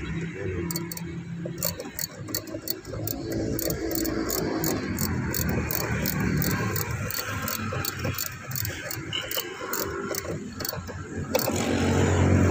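Socket ratchet with an extension clicking in a quick steady run, about three clicks a second, as it backs out a centre-console bolt. Under it an engine rumbles steadily and grows louder near the end.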